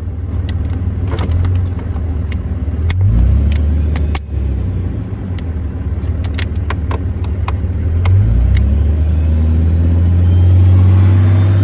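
1978 Peterbilt 359's Cummins 400 diesel running fast on its adjustable high idle just after a cold start. Its speed steps up about three seconds in and again around eight seconds, growing louder, with sharp clicks now and then.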